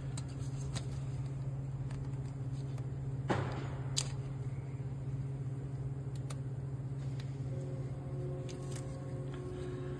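Plastic zip ties being fastened around a sensor wire: scattered small clicks, a short zip about three seconds in and a sharp click just after, over a steady low hum.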